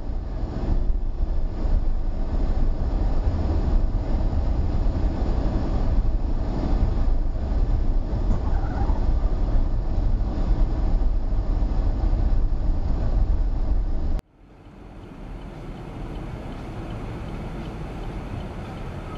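Road noise and a deep engine and tyre rumble inside a moving car, recorded by its dashcam. The sound cuts off sharply about 14 seconds in, and a quieter, steady road noise from another car takes over.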